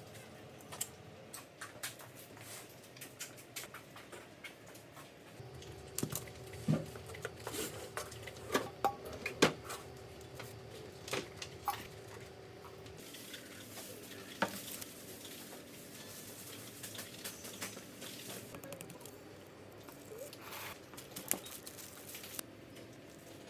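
Potting soil being scooped, dropped and patted by hand, a crumbly patter with sharp clinks and knocks against a stainless steel bowl, most frequent in the middle.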